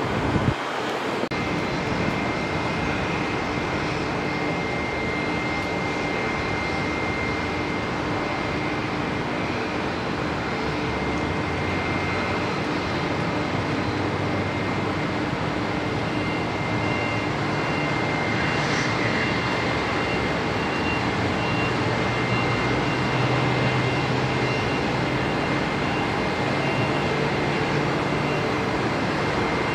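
Bombardier Dash 8 Q300 turboprop's twin Pratt & Whitney Canada PW123 engines and propellers running steadily as it rolls along the runway: a broad rumble with a steady high whine on top.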